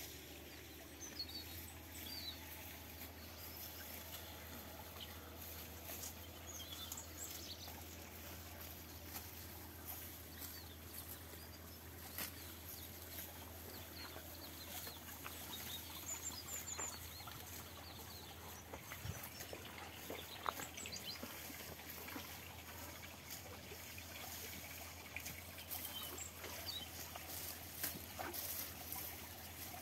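Small birds chirping faintly now and then over quiet outdoor background noise, with scattered soft clicks.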